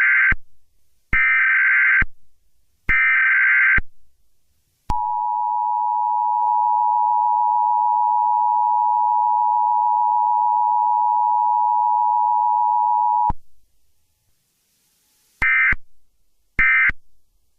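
Emergency Alert System tones: three harsh data bursts of the SAME header, then the two-tone attention signal held steady for about eight seconds, then three shorter data bursts near the end.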